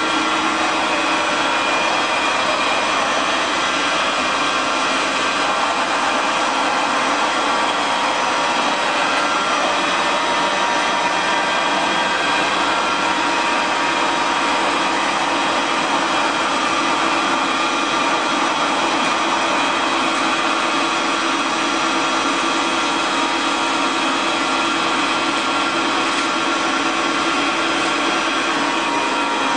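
Steady drone of running machinery, an even rushing noise with several steady whining tones over it that holds unchanged throughout.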